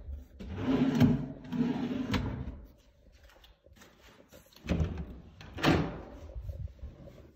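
Wooden cabinet and door handling: a rustle ending in a knock about two seconds in, then two more knocks a second apart as a door is opened.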